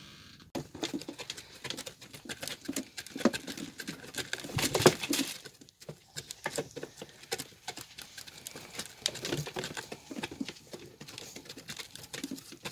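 Hens pecking at scattered compound feed: a rapid, irregular patter of light taps and clicks, with a louder burst about five seconds in.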